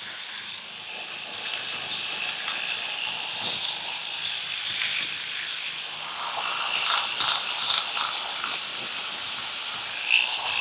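Makita 9032 electric finger belt sander running, its narrow sanding belt hissing steadily against carved wood as it cuts fine detail lines, with a faint high whine and a few short scrapes as the belt touches the surface.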